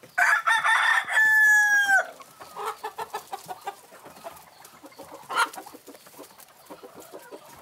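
Rooster crowing once, loud, for nearly two seconds and ending on a falling note, followed by softer clucking of hens.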